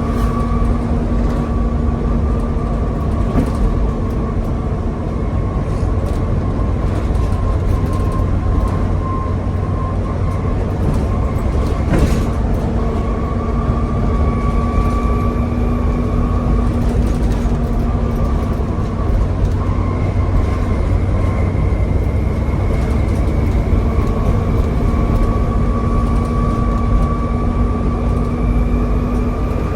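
Volvo B7TL double-decker bus driving at speed, heard from on board: a deep engine and road rumble under a high, steady whine of the 'Hoover' kind, which climbs slowly in several long stretches as the bus gathers speed. There is a single sharp knock about twelve seconds in.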